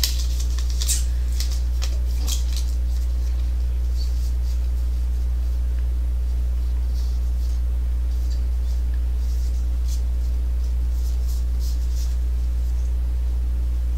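A steady low electrical hum runs under faint, scattered crinkles and rustles of a trading card pack's foil wrapper being handled and opened. The crinkles cluster in the first couple of seconds and again in the second half.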